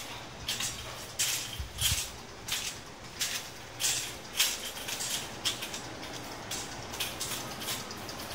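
Footsteps on a hard tiled floor at an even walking pace, about one and a half steps a second.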